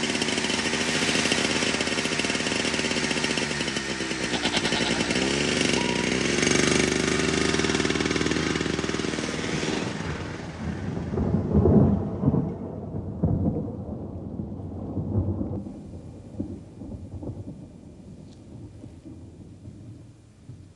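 A thunderstorm: a continuous roll of thunder, with the rushing noise of wind and rain. A few heavier rumbles come near the middle, the strongest about twelve seconds in, and then the storm fades away.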